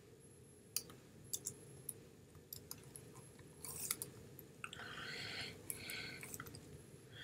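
Faint, irregular clicks of computer keyboard keys as a search phrase is typed, with soft breathy sounds about five and six seconds in.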